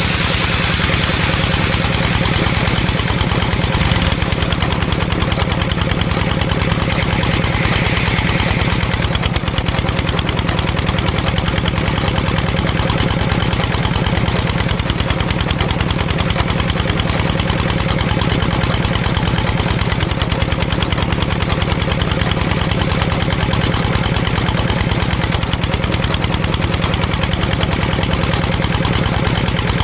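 A small motor runs steadily at constant speed with a fast, even pulse.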